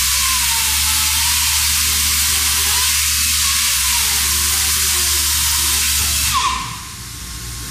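Pneumatic concrete chain saw running, its air motor and water-fed diamond chain cutting concrete with a loud, steady hiss over a low hum. About six seconds in the sound drops suddenly to a quieter hiss as the saw comes out of the cut.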